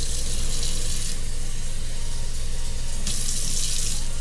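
Kitchen faucet running cold water into a drywall mud pan holding quick-setting joint compound, a steady splashing stream.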